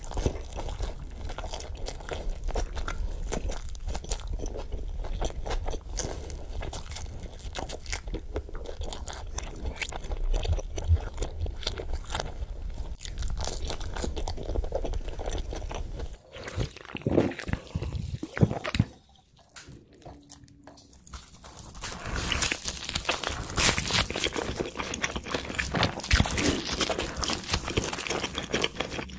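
Close-miked eating: crunchy bites into toasted cheese pizza and wet chewing. A brief near-silent gap about two-thirds of the way through, then more crisp biting and chewing of pizza.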